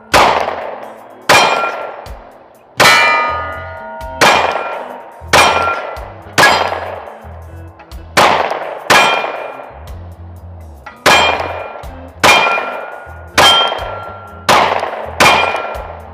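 Glock 43X 9mm pistol fired at a steel target in a slow, steady string of about fourteen shots, a little over a second apart. Each shot is followed by the clang and ring of the steel plate. The string runs without a stoppage, the magazine feeding with no issues.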